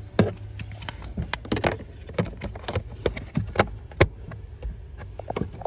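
Irregular plastic clicks and knocks of a 2016+ Subaru Outback's cabin air filter and its access cover being handled and fitted back into the housing behind the glove box, with the sharpest click about four seconds in, over a steady low hum.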